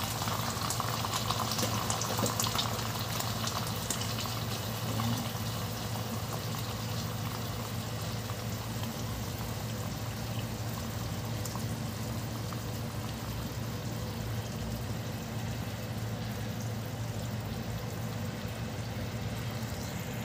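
Cornstarch-thickened black bean sauce simmering in a pan around a fried pomfret, bubbling and popping steadily, busier in the first few seconds, over a steady low hum.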